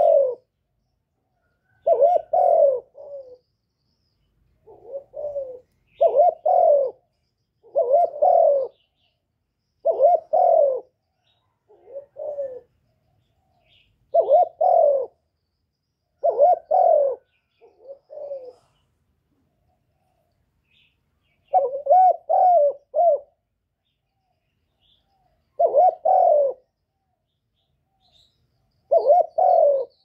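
Spotted dove cooing: about a dozen short phrases of two or three notes each, repeated roughly every two seconds, some softer than others, with a longer pause about two-thirds of the way through.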